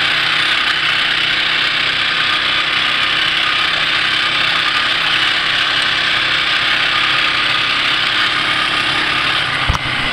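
Off-road vehicle engine running steadily as it drives along a dirt trail, with a dense rushing noise over it, and a sharp thump near the end.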